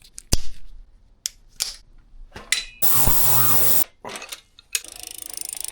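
Workshop tool sounds: scattered clicks and knocks, a power tool running loud for about a second near the middle, then a quieter fast rhythmic rattle near the end.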